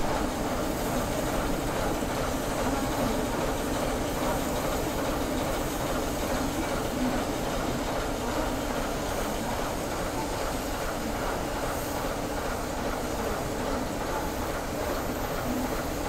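Diesel locomotive engine running steadily at an even level.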